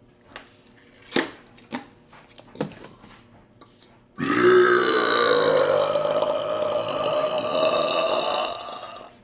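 A man's long, loud burp lasting about five seconds, starting about four seconds in, its pitch dipping at the start and then holding. Before it there are a few short clicks.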